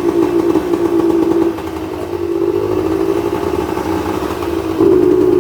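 Honda Dio 50cc two-stroke scooter engine running with the throttle opened but not picking up revs. The pitch stays flat while the level swells, dips and swells again. The fault behind it is a wiring-harness connector that has come apart.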